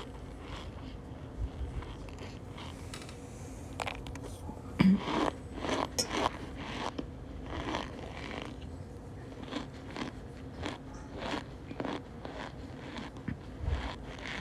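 Cornstarch crunching and squeaking in a run of short, irregular crunches, the loudest about five seconds in.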